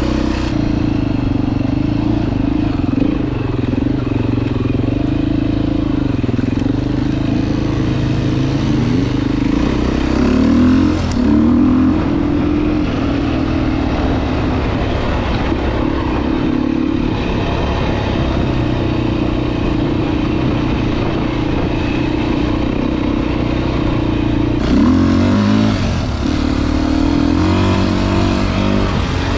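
Dirt bike engine running while being ridden, its pitch rising and falling with the throttle, with two short louder revs about a third of the way in and again near the end.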